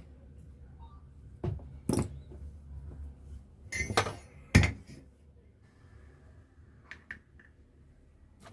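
Metal clinks and knocks of tools and starter-motor parts being handled on a workbench: four sharp strikes in the first half, the loudest about four and a half seconds in, then a few faint ticks.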